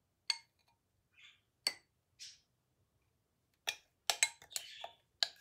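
A metal spoon clinking against glass and scraping thick pistachio cream from a glass bowl into a cut-glass jar. Single sharp clinks come a second or more apart, then several in quick succession near the end.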